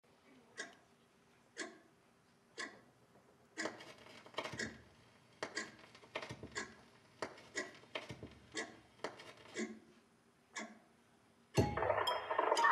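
Clock-like ticking, about one tick a second at first, then faster and more uneven, mixed with knocks and low thuds. About a second before the end, louder music comes in.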